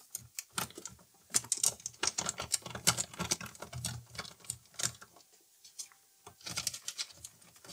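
A hand screwdriver working a screw out of the turntable's platter assembly: runs of quick, irregular clicks, pausing about five seconds in and starting again near the end.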